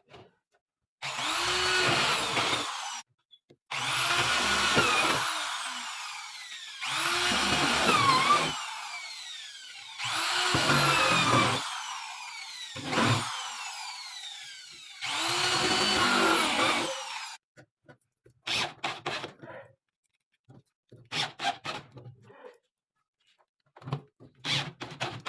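Power drill run in five short bursts, each motor spinning up and winding down, followed by a scatter of light clicks and rubbing sounds.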